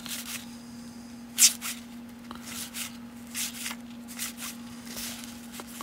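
1992 Topps baseball cards being slid one at a time off a hand-held stack, a series of short papery swishes, the loudest about a second and a half in. A low steady hum runs underneath.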